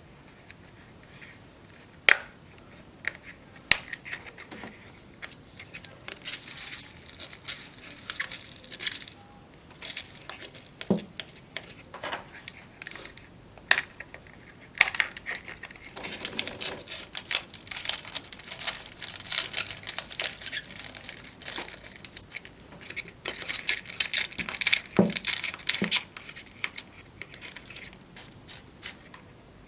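Slime being squeezed and worked by hand: wet crackling with sharp pops of trapped air, louder pops about 2 and 14 seconds in, and denser crackling in the second half.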